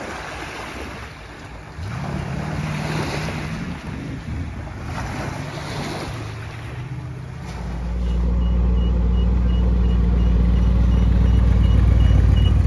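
Small waves washing onto a pebble beach, with a faint steady engine hum behind them. About halfway through, a hot rod's engine comes in with a loud, low, steady rumble that grows louder toward the end.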